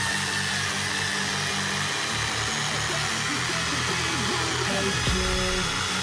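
Background music over a Husqvarna 240i battery chainsaw running steadily as it cuts into a very thick log.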